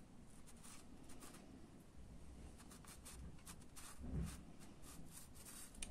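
Faint, scratchy strokes of a 5/8-inch flat watercolour brush dragged dry-brush fashion across paper, many short strokes, with a soft low bump about four seconds in.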